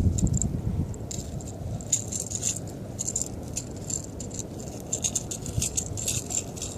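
Rattle Trap lipless crankbait rattling, its beads clattering in short, irregular bursts as the lure shakes in a freshly caught bass's mouth.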